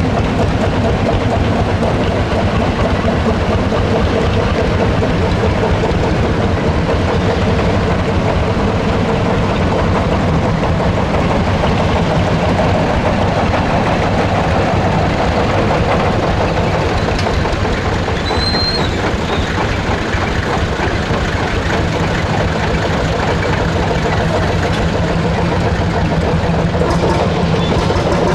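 Lanz Bulldog tractor's single-cylinder hot-bulb two-stroke engine running steadily under load as it tows a wooden wagon.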